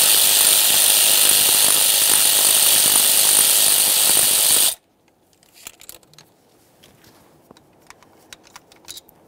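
A cordless power tool on a socket extension runs steadily for almost five seconds, spinning out an ignition coil's 8mm mounting bolt, then cuts off suddenly. Faint small clicks and taps follow as the loosened bolt is handled.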